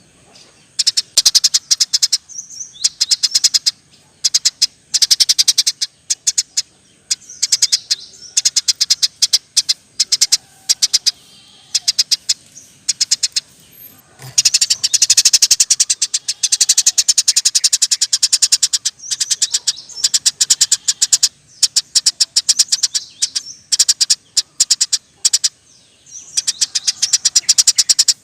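Eurasian tree sparrow chattering in fast rolling trills of rapid chirps. The trills come in bouts of a few seconds with short pauses between them, and one longer unbroken run about halfway through.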